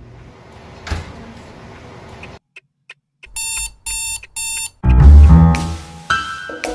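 Alarm clock beeping in three quick bursts, then music cuts in loud with a heavy bass hit and carries on. A single knock sounds about a second in, before the beeping.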